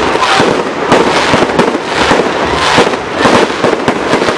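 Fireworks going off in a rapid, continuous run of crackles and pops, with no pause.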